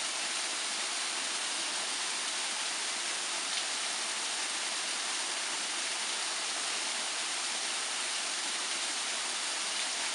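Small waterfall splashing steadily onto rocks.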